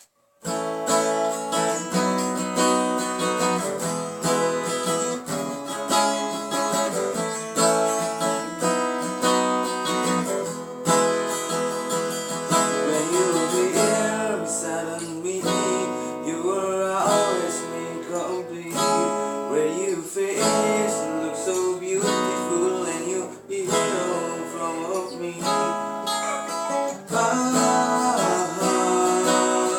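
Acoustic guitar strummed in chords, starting about half a second in, with a picked melody line woven through the chords in the middle.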